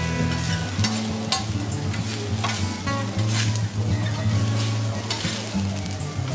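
Fried rice sizzling on a flat steel teppanyaki griddle while a metal spatula scrapes and taps against the griddle, pushing the rice into a mound. The sizzle is steady, and the sharp scrapes and clicks come every second or so.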